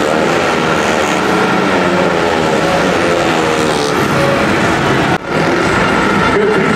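Several speedway bikes racing, their 500cc single-cylinder engines revving and backing off, the pitches rising and falling over one another. The sound cuts out briefly about five seconds in.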